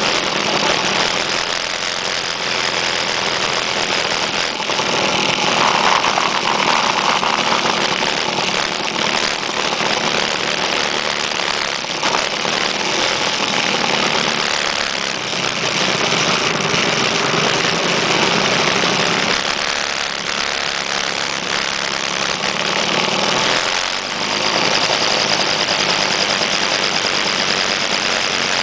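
Motor scooter engines running steadily as the scooters ride along, under a constant rush of noise.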